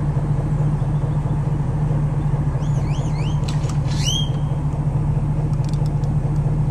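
A steady low hum, like a vehicle engine idling close by. Bird chirps come through about two and a half to three seconds in, then a rising whistle about a second later. A few faint clicks sound near the end.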